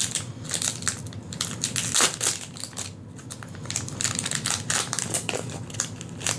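Foil wrapper of a Magic: The Gathering booster pack being torn open and crumpled by hand: a dense run of crackling crinkles, with a short lull about three seconds in.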